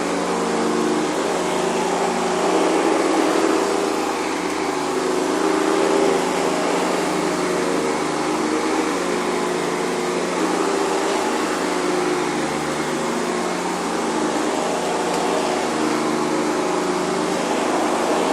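Hoover Convertible upright vacuum cleaner running steadily on carpet, its motor humming with a whirring rush of air and the beater-bar agitator brushing, the level rising and falling slightly as it is worked over the carpet.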